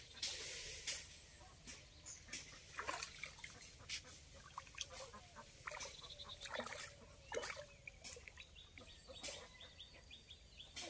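Faint scattered splashes and knocks as a small hooked fish thrashes at the pond surface and is pulled out on the line, with small birds chirping faintly in the second half.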